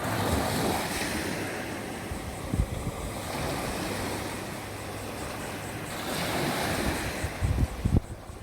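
Ocean waves breaking and washing on the shore, the surf swelling twice about six seconds apart. Wind buffets the microphone with a few low thumps.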